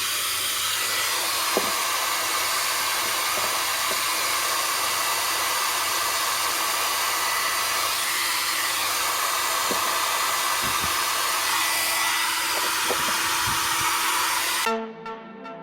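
Nova NHP 8100 hair dryer running steadily, a loud fan rush of high airflow. It cuts off abruptly near the end and music starts.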